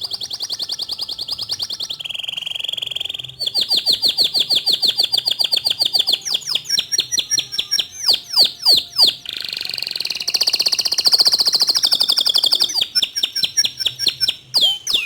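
Domestic canary singing a long, unbroken song of fast trills that shift in pitch, with a run of sharp downward-sweeping notes in the middle and separate quick notes near the end.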